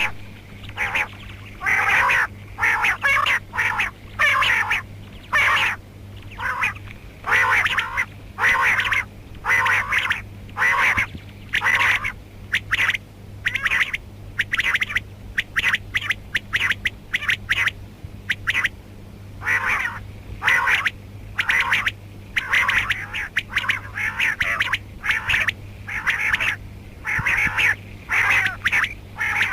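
Female rain quail calling, short call notes repeated about once a second with a few brief pauses, over a steady low electrical hum.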